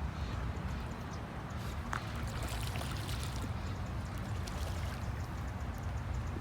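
Steady outdoor water ambience: a continuous low rumble with light trickling and splashing, and a few faint clicks near the middle.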